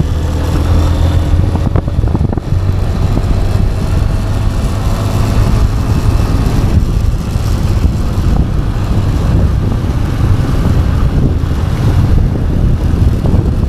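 Honda X-Blade's single-cylinder engine running as the motorcycle is ridden, a steady low rumble with road and air noise over it.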